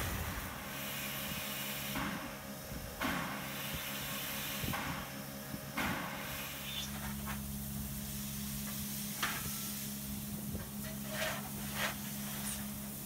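Steam hissing from a W-class 4-8-2 steam locomotive standing in steam, over a steady low hum, with a few brief knocks along the way.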